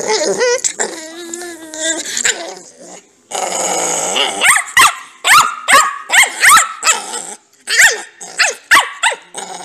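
Pug puppy play-growling and yapping while mouthing a hand. There is a wavering growl at first, a rasping stretch about three seconds in, then a string of short, high yips about two a second.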